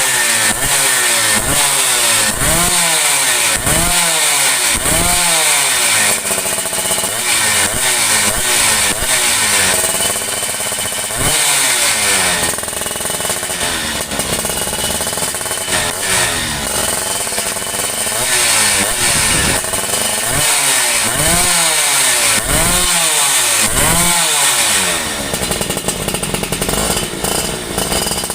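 Yamaha F1ZR single-cylinder two-stroke engine with a V75 daily-use port job, blipped repeatedly: the pitch rises and falls again about once a second, over and over.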